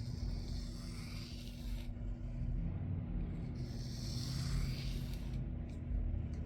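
A knife blade drawn slowly across a sharpening plate, two long hissing strokes a couple of seconds apart, working off a burr still left on the edge. Two light clicks near the end.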